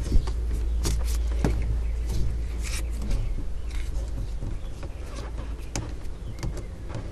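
Scattered clicks, knocks and rubbing of hands working a PVC camera mount and its rubber inner-tube strap against a wooden canoe thwart, as the mount is lashed in place. A low steady rumble lies under it and eases about three seconds in.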